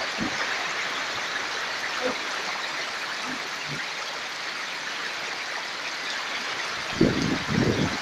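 Heavy rain falling in a steady, dense hiss, with low irregular rumbles near the end.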